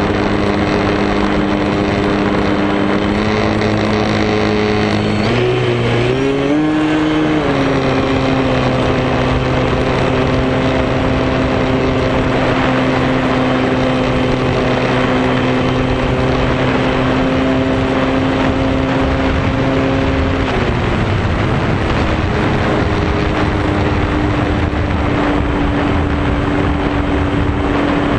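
RC foamboard airplane's motor and propeller whining over heavy air-rush noise. The pitch steps up and wavers a few seconds in, holds steady, then drops about twenty seconds in and returns shortly after as the throttle changes.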